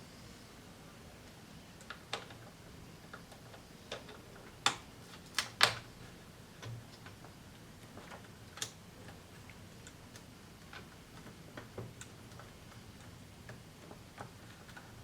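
Irregular clicks and taps of small plastic parts and tools being handled while a Casio SA-75 keyboard is taken apart, with a few louder knocks together about five seconds in. No notes are played.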